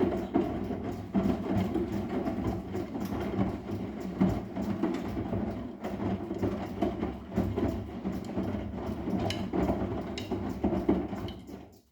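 Arçelik 10121 washing machine running its cotton wash, a steady rumble from the turning drum with irregular knocks and clicks; it cuts off suddenly near the end.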